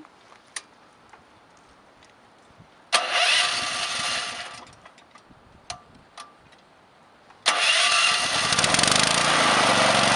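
A SmarterTools portable gasoline generator being started. The first attempt, about three seconds in, runs for a second or so and dies away; the second, about seven and a half seconds in, catches suddenly and the engine settles into a loud, steady run.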